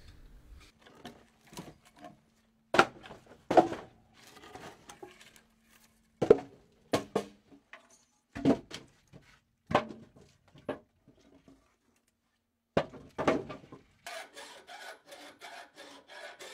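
Split firewood logs tossed onto a woodpile, giving sharp wooden knocks at irregular intervals. Near the end, a hand file rasps in quick strokes on metal clamped in a vise.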